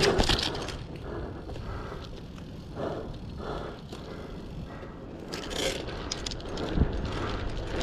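Bicycle tyres crunching over dirt and gravel while riding, loudest in the first second, with a few scraping bursts and a low knock near the end.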